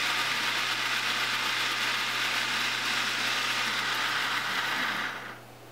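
Countertop blender motor running steadily at speed, grinding fried onions and yogurt in its glass jar into a smooth paste. It stops about five seconds in and the sound dies away within half a second.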